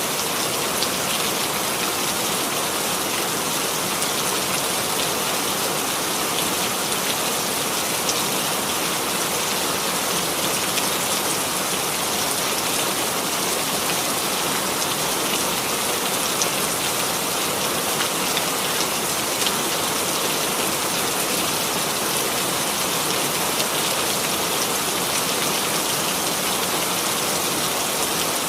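Steady rain falling on a surface, a dense even patter of drops with occasional slightly louder drops.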